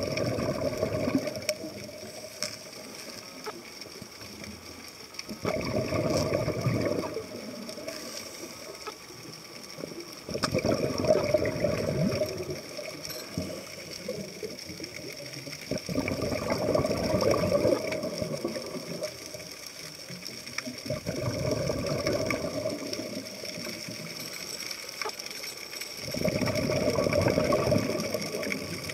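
Scuba diver's exhaled bubbles from the regulator, heard underwater: a bubbling rush that comes for about two seconds roughly every five seconds with each breath, about six times, with quieter stretches between. A faint steady high whine runs underneath.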